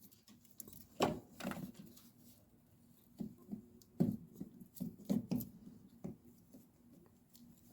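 Scattered small clicks and knocks as an engine wiring-harness plug is pushed and worked into its firewall bulkhead connector by hand.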